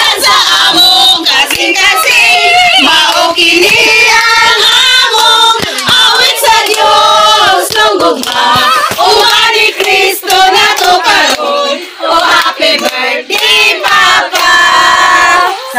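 A small group, mostly women, singing a song together while clapping their hands.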